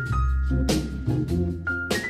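Background music with a steady beat, sustained bass notes and a few held high tones.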